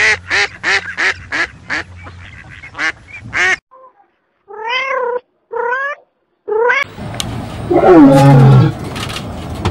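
A bar-headed goose giving a quick run of short honks, then a kitten meowing three times, then a lion's loud call falling in pitch about eight seconds in.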